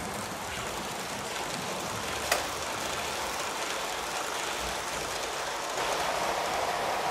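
HO-scale model train, a Roco CC 6514 locomotive with Grand Confort coaches, running along the track with a steady whirring rumble of wheels on rails. A single sharp click comes about two seconds in.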